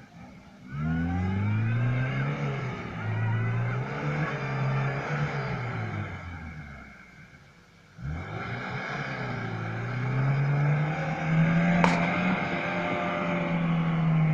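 Lada Niva's four-cylinder petrol engine revving hard in the sand, its pitch rising and falling several times before it fades away about seven seconds in. It comes back about a second later and climbs to a high, held rev, with a sharp click near the end.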